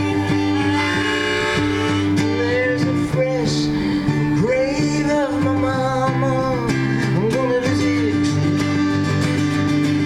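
Live country-folk band music in an instrumental break: acoustic guitar under a lead melody that slides and bends between notes over a shifting bass line.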